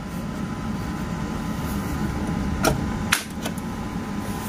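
Steady low rumbling background noise with a faint steady high tone, broken by three short sharp clicks a little past halfway.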